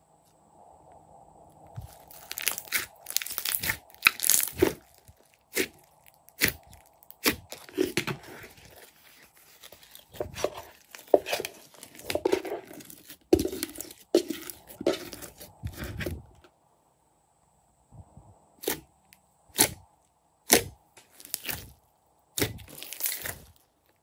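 Glossy slime being stretched, squeezed and kneaded by hand, giving runs of sharp sticky pops and crackles. The pops thin out after a short pause about two-thirds of the way through.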